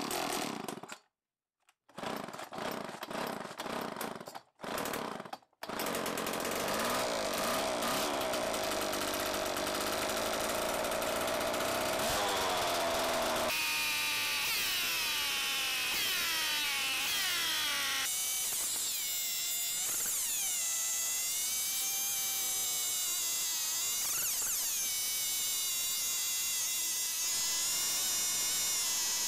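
Homelite XL 26.2cc two-stroke chainsaw engine running after a long layup, its speed rising and falling repeatedly. Its idle, set a little high, is being turned down at the carburetor.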